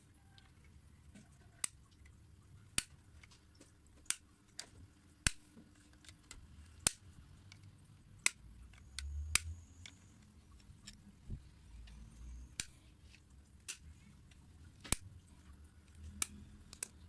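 Sharp plastic clicks and snaps, about one every second, from a broken plastic car door handle being worked apart by hand, with low rubbing and handling noise between them.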